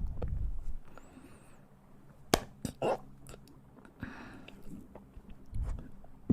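Close-miked mouth sounds: a few sharp clicks and smacks about two to three seconds in, amid faint chewing.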